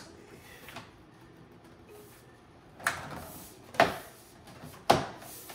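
Three sharp knocks about a second apart: a TRD Pro-style replacement grille being pushed and seated against the front bumper.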